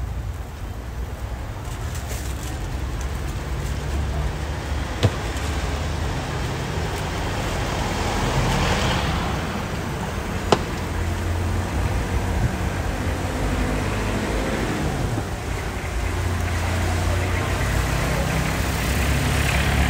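Road traffic going by, engine noise swelling and fading as vehicles pass, with two sharp clicks, about five and ten seconds in.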